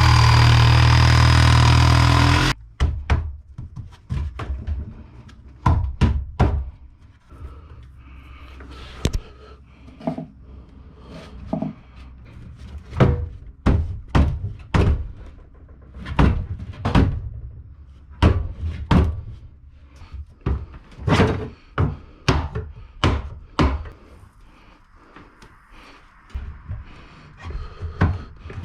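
An engine running for the first couple of seconds, cut off suddenly. Then scattered, irregular knocks and thuds of wooden cabinets being handled and fitted.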